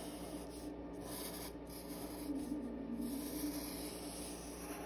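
Sharpie permanent marker tip drawing along paper: a faint, steady rubbing as a line is traced.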